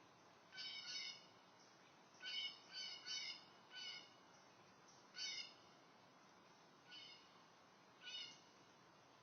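A series of about eight short animal calls, each under half a second and pitched with several overtones, coming in irregular groups over a faint steady hiss.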